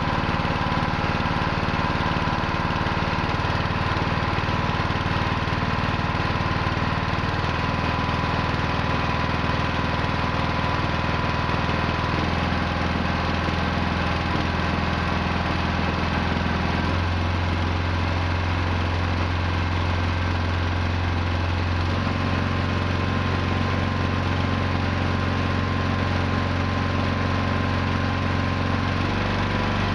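Small gasoline engine running steadily on a test rig, driving a pulley that spins a Windtura 750 wind-turbine generator charging a battery bank. Its note changes in steps several times as the speed is raised, the generator turning from about 410 to over 500 RPM.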